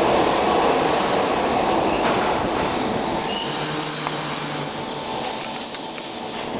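New York City subway train pulling into an underground station: steady rumble of the cars rolling along the rails, with a thin high-pitched wheel squeal from about two and a half seconds in. The noise eases slightly near the end as the train slows.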